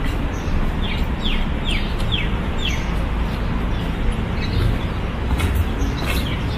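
A bird calling: a quick run of five short, high notes, each falling in pitch, about a second in, over a steady background hum and rumble.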